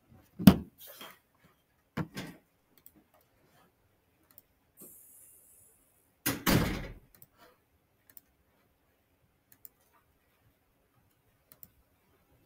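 A door banging shut with a heavy thud about six seconds in, after a couple of lighter knocks.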